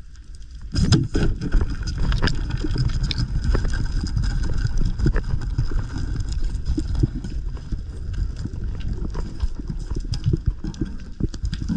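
Underwater sound picked up by a diver's camera: a sharp knock about a second in, then constant low rumbling with rapid clicks and knocks as the diver works close among the rocks.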